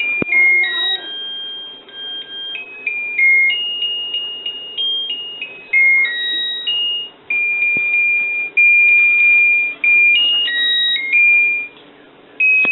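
Mr. Christmas Carolites Model 100 playing a Christmas carol as a thin electronic beeping melody, one pure tone at a time, with several longer held notes in the second half.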